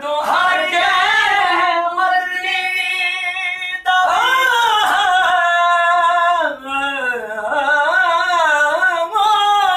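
A man singing a devotional qasida in praise of Ali, unaccompanied, in a high voice that holds long, winding notes, pausing briefly between phrases.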